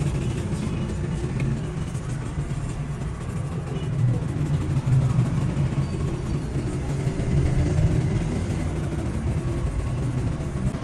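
Steady low engine hum, like a motor idling, with no distinct knocks or other events.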